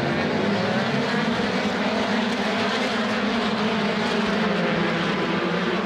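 A full field of Formula 3 racing cars accelerating away from a standing start, many engines at high revs together in one dense, steady drone.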